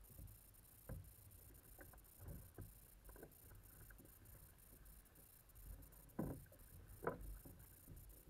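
Faint splashing of double-bladed kayak paddles dipping into choppy sea water, an irregular stroke every second or so, the two loudest a little past halfway, over a low steady rumble of water and wind.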